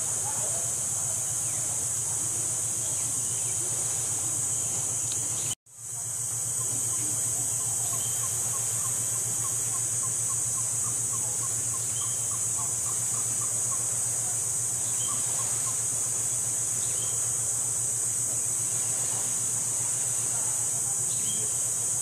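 Steady high-pitched insect drone over a low steady hum, cutting out for a moment about five and a half seconds in. A faint run of quick short notes comes in about eight seconds in and lasts about three seconds.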